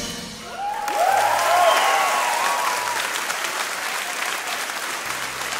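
Theatre audience applauding at the end of a song, with a few cheering voices rising and falling over the applause in the first two or three seconds.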